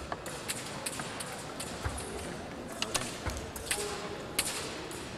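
Fencing hall ambience: irregular sharp clicks and taps over a steady background hum, with faint music.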